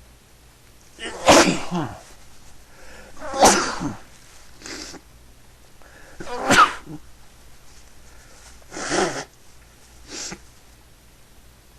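A person sneezing again and again in a fit: four loud sneezes about two to three seconds apart, then a smaller fifth one near the end.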